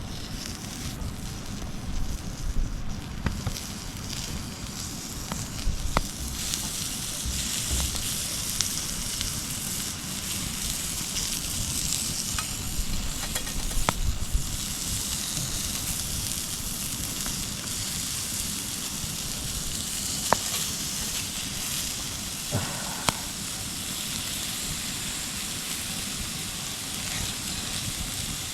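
Lamb chops sizzling over a campfire: a steady hiss of fat cooking, with a few sharp pops from the fire.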